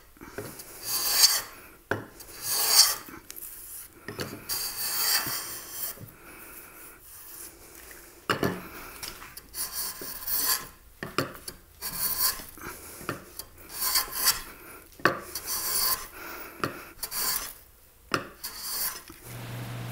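Metal bench plane taking shavings off wood in repeated push strokes. Each stroke is a short hiss of the iron slicing the surface, about a dozen in all, unevenly spaced with brief pauses.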